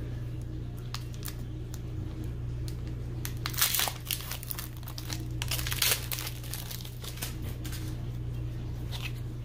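Foil Pokémon booster pack wrapper crinkling as it is handled and opened, a run of irregular crackles with louder bursts about a third and two thirds of the way through.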